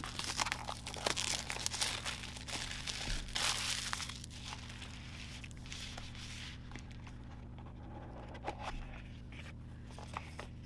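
Hands opening a paperboard notebook box and handling its packaging: a run of rustles and small clicks, busiest over the first six seconds and quieter after that.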